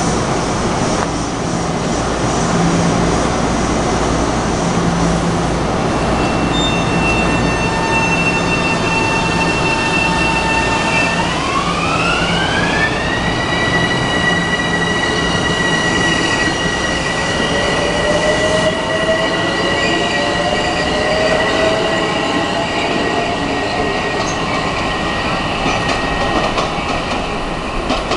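Metro-North electric multiple-unit train running past and away, a steady rumble of wheels on rails. High whining tones from the train climb in pitch about halfway through, and a lower whine rises later.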